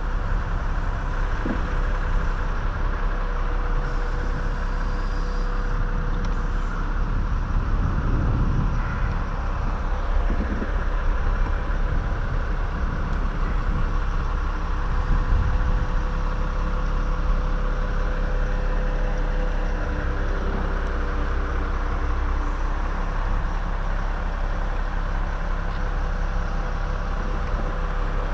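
Bucket truck engine running steadily at an even pitch, the constant drone of the aerial lift's power source.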